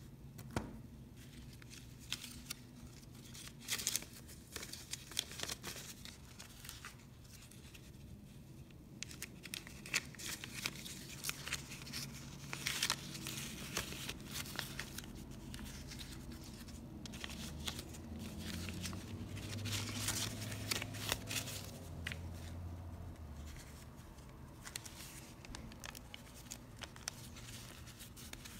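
Hands handling a small wallet and then shuffling through a stack of paper dollar bills: crisp rustling and flicking of banknotes, in uneven bursts.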